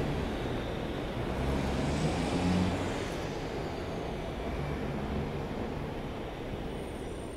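New York City subway train rumbling away along an elevated steel structure, slowly fading.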